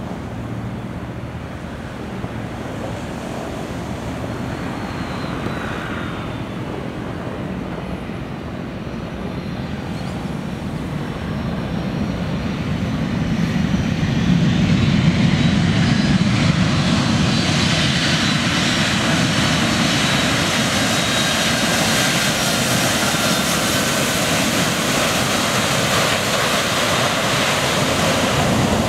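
Boeing 767 jet engines as the airliner comes in to land, growing louder up to touchdown on a wet runway about fourteen seconds in. After touchdown comes a steady, louder rush with a high whine through the rollout.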